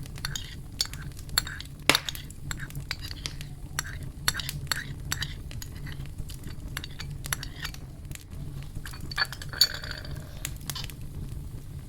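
A utensil clinking and scraping against a bowl while honey is stirred into raw chicken wingettes, in irregular light clinks over a steady low hum.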